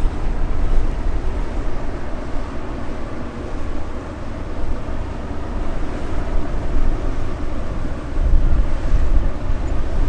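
Low drone of a passing inland cargo barge's engine, mixed with wind rumbling on the microphone in gusts.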